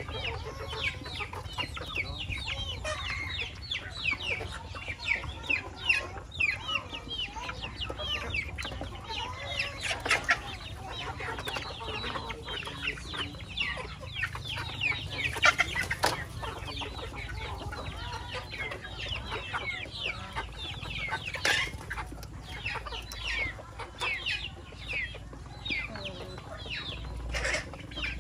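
A flock of chickens clucking and chirping nonstop, many short falling calls overlapping, with a few sharp clicks.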